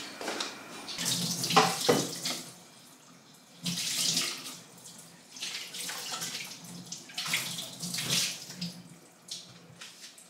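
Water running from a kitchen tap into a sink during washing-up, swelling and fading in several surges.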